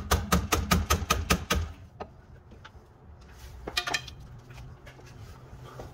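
Steel pry bar knocking and rattling against the lower mount of a rear shock absorber as the stuck shock eye is levered off its mounting: a quick run of about ten sharp metal knocks in under two seconds, then a few scattered clicks about two and four seconds in.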